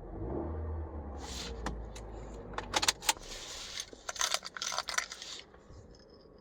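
2010 Honda Fit engine running low and steady, falling away about three seconds in, then a metal key ring jingling and clicking as the freshly programmed flip transponder key is handled.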